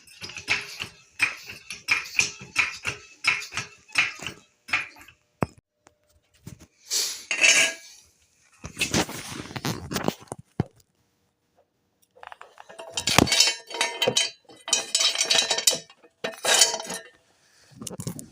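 Metal tools and hardware clinking and clattering. There are rapid runs of clicks for the first five seconds, then scattered clanks with a metallic ring in the last few seconds.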